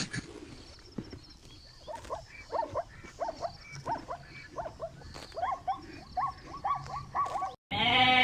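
An animal giving a series of short yelping calls that slide up and down in pitch, coming faster, about two a second, towards the end. They stop abruptly, and a louder, drawn-out bleat starts just before the end.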